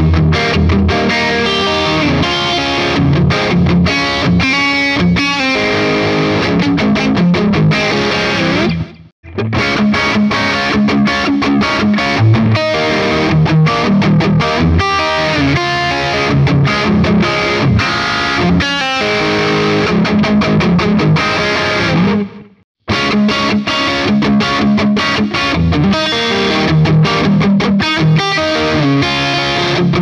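Charvel San Dimas Style 1 electric guitar played with distortion: riffs and single notes. It first plays in coil-split single-coil mode, then with the no-load tone control, then with both. The sound cuts out briefly about nine seconds in and again about twenty-two seconds in, between the settings.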